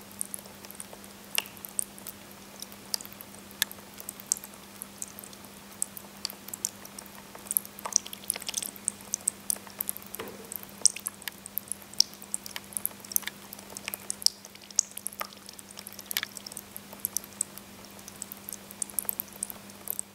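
Small tabletop fountain running: two thin water jets falling onto pebbles and water in a resin basin, making irregular drips and plinks over a steady low hum of its electric pump.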